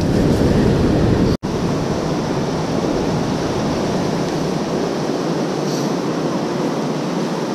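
Steady rushing noise of surf and wind on the beach, with a brief dropout about a second and a half in.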